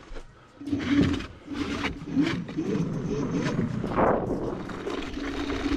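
Laotie ES19 electric scooter under throttle: a steady motor whine that wavers in pitch as speed changes, with knocks and rattles as it rolls up a wooden ramp and over boardwalk planks. A short noisy swell about four seconds in.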